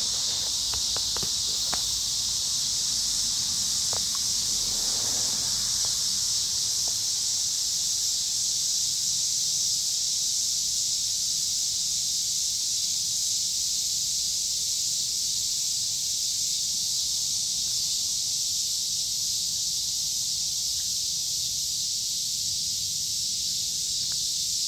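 A dense chorus of cicadas screaming, a loud, steady, high-pitched drone with no let-up. A few faint clicks in the first few seconds.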